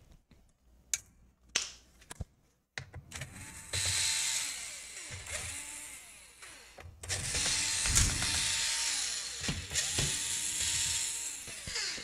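Small cordless electric screwdriver backing screws out of a laptop's plastic bottom panel, its motor whirring in about four runs of a second or two, each rising then falling in pitch. A few light clicks of handling come before the first run.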